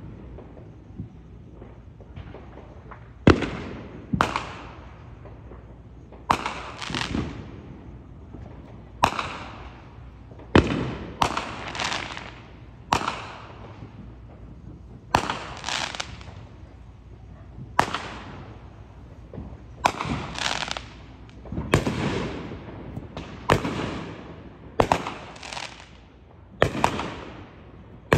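Aerial fireworks going off in a steady series of sharp bangs, one every second or two, each trailing off in a long echo.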